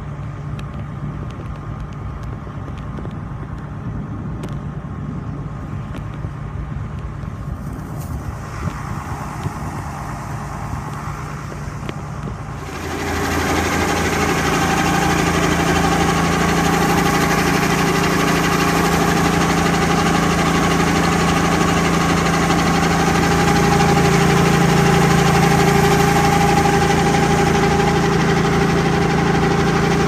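Steady hum of a combine harvester and tractor unloading grain into a chaser bin. About thirteen seconds in, it cuts to much louder steady engine and machinery noise as a grain truck tips its load into an auger hopper.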